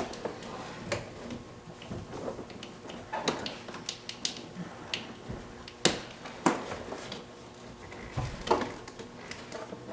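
Scattered clicks, knocks and light rattles of hand work on the truck's wiring and hood-release cable, with the sharpest knock about six seconds in.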